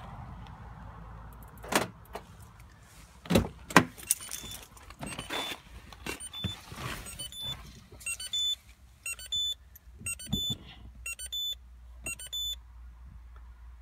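A few knocks and clicks, then a run of short, high electronic beeps from the car, about two a second at first and then in quick clusters, stopping shortly before the end.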